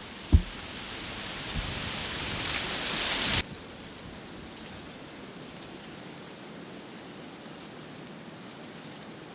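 Wind noise: a sharp thump near the start, then a rush of wind that builds and cuts off abruptly about three and a half seconds in, leaving a fainter steady hiss.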